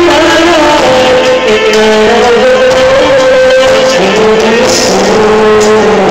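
Live band music, loud: a male singer singing held, gliding notes into a microphone over guitar accompaniment.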